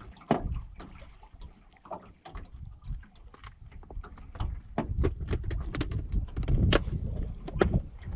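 Irregular clicks and knocks, some sharper and louder in the second half, over a low rumble of wind on the microphone.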